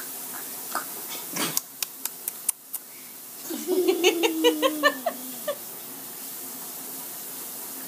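A toddler's voice in a run of quick, pitched, giggle-like bursts over a falling tone for about two seconds, after a few sharp clicks of sticky hands a second or two earlier.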